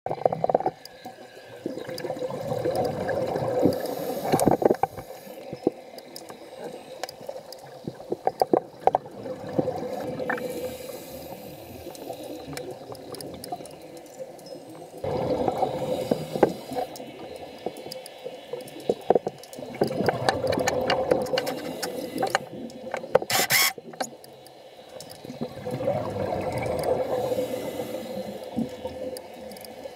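Underwater sound from a camera submerged on an offshore reef: a steady hum, swells of rushing water noise that rise and fall every few seconds, and scattered clicks and knocks.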